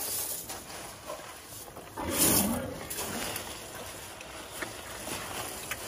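Asian elephants breathing noisily through their trunks as they feed on sunflower seeds, with one loud blast of breath about two seconds in.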